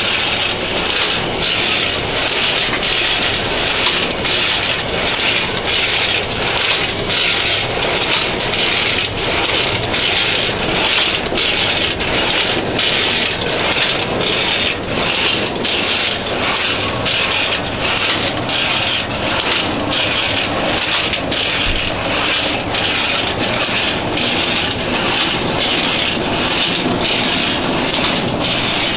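Automatic cashew cutting machine running, cutting raw cashew nuts with a steady mechanical clatter that has a regular beat of about two strokes a second.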